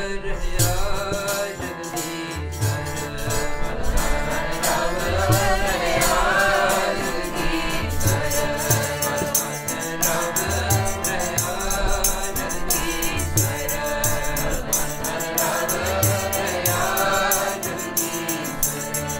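Sikh keertan: several voices singing a shabad together with harmonium accompaniment, deep drum strokes in a repeating pattern and a steady jingling percussion.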